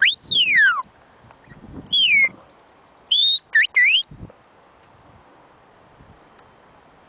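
Shepherd's whistle commands to a working sheepdog: loud, clear whistled notes, a rising note sliding into a long falling one, then a falling note about two seconds in, and a short high flat note followed by two quick rise-and-fall notes a little after three seconds in.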